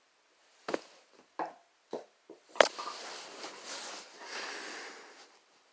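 A few light knocks, then one sharp knock about two and a half seconds in, followed by a couple of seconds of rustling noise.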